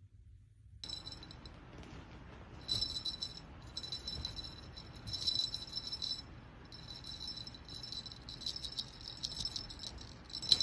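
Quiet metallic jingling in several short bouts, starting about a second in.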